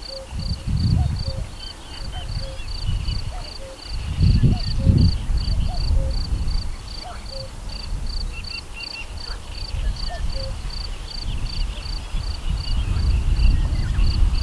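Outdoor insect chirping in an even rhythm about twice a second, with a short low call repeating about once a second in the first part. Strong low rumble on the microphone swells around the middle and again near the end.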